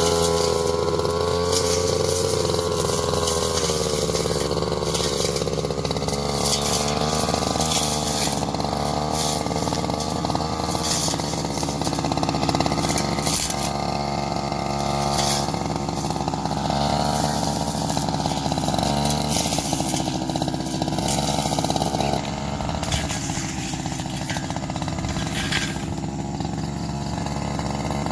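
Engine of a grass-cutting machine running steadily under load, its pitch wavering up and down as the engine speed changes while it cuts grass.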